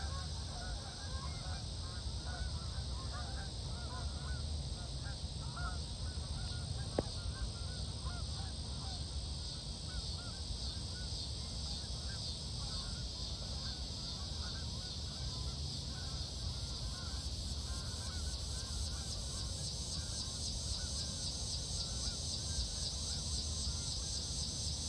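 A flock of geese honking overhead, many overlapping calls that thin out and fade over the second half, over a steady high hiss and low rumble, with one sharp click about seven seconds in.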